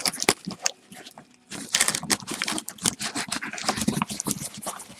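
Cardboard boxes scraping and knocking against each other as one is worked out of a tightly packed cardboard case: irregular rubbing and light taps, with a short lull about a second in before the scraping picks up again.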